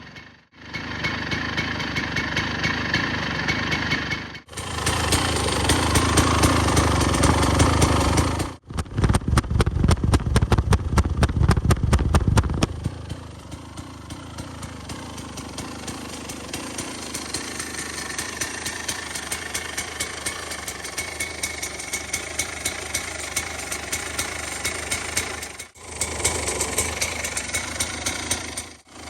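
1998 KTM EXC 250 two-stroke dirt-bike engine running, heard in several short clips cut off abruptly. It runs loud and higher-revving for the first dozen seconds, then settles to a quieter, steady idle.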